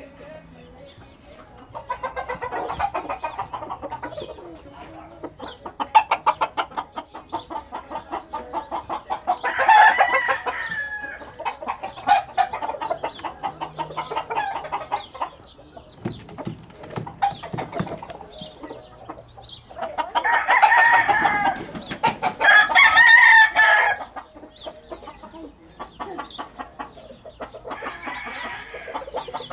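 Roosters crowing and chickens clucking, with loud crows about ten seconds in and twice between about twenty and twenty-four seconds.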